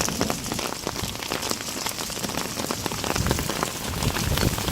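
Heavy rain falling, a dense steady hiss with many sharp individual drop hits close by.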